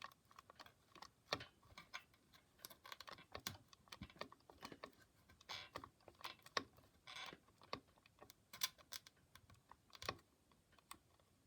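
Irregular, faint clicks, taps and short scrapes of a tool working at a nail hammered crooked into a wooden sewing-machine table, as it is pried and twisted partly loose.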